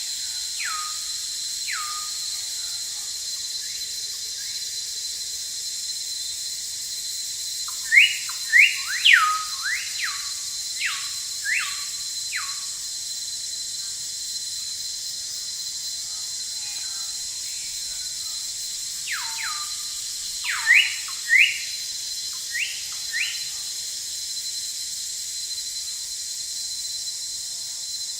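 Forest ambience: a steady high insect drone with a thin held tone in it, over which a bird gives two bouts of short whistled calls, each sliding steeply down in pitch, several in quick succession.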